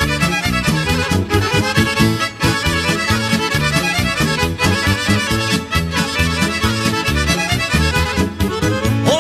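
Instrumental break of a Serbian folk (narodna muzika) song: accordion carrying the melody over bass and a steady dance beat.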